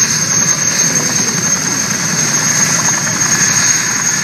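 Boeing CH-47 Chinook's twin turboshaft engines running: a steady high-pitched whine over a dense low noise.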